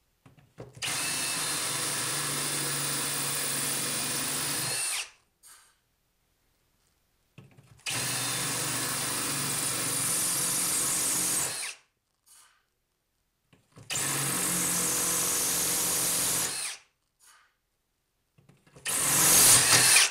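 Hammer drill in plain drill mode at high speed, driving a tile-and-glass bit through floor tile: three runs of several seconds each with short pauses between, then a shorter, louder run near the end.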